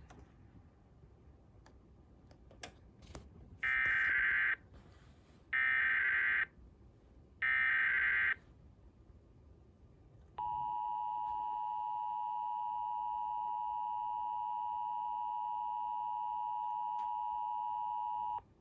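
Emergency Alert System tones: three short, identical bursts of the SAME digital data header, each just under a second and about a second apart, encoding a practice/demo warning (DMO). After a pause of about two seconds comes the steady two-tone EAS attention signal, held for about eight seconds before it cuts off.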